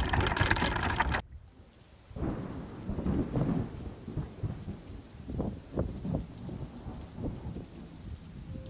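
For about a second, wind buffeting and anchor chain clattering through a sailboat's manual windlass as more chain is paid out. Then it cuts off abruptly, and thunder rumbles in repeated low swells with rain during a thunderstorm.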